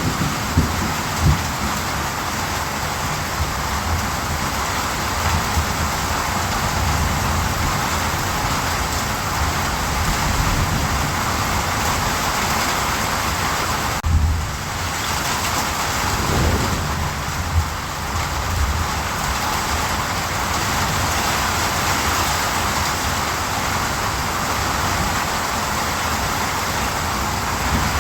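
Steady rain falling, with a low rumble underneath. About halfway through, the sound briefly dips and shifts.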